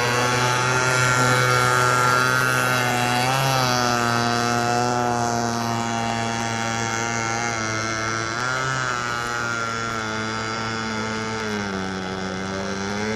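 31 cc Weedeater two-stroke engine of a five-foot radio-controlled hydroplane running at speed on the water, a steady buzzing tone whose pitch wavers briefly twice and dips then recovers near the end.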